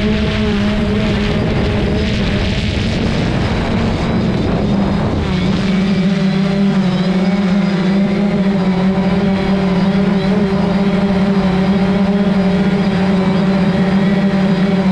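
Quadcopter drone's propellers giving a steady, loud, even-pitched hum, with a low rumble underneath for the first five seconds or so.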